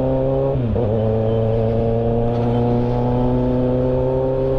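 Kawasaki Z800's inline-four engine running under way as the motorcycle rides along, with a steady note that dips briefly about half a second in and then rises slowly.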